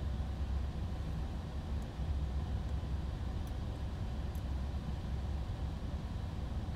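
Steady low rumble of workbench room tone, with a few faint light ticks from small parts being handled.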